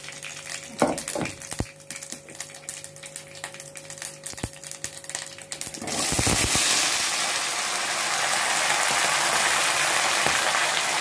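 Mustard seeds crackling in hot mustard oil in a nonstick kadhai. About six seconds in, whole ripe ber (Indian jujube) fruits are tipped in and the oil breaks into a loud, steady sizzle.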